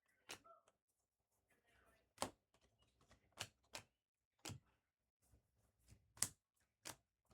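Faint, irregular clicks and taps of trading cards being handled and flipped through a stack, about seven in all.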